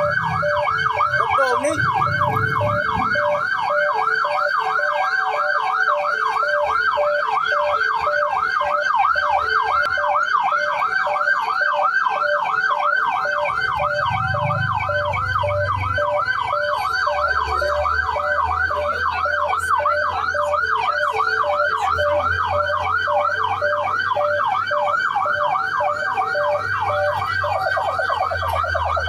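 Emergency vehicle sirens in a fast rising-and-falling yelp, layered with a second pulsing siren tone; fire apparatus responding to a fire call. A low engine rumble comes in about halfway, and another, lower yelping siren joins near the end.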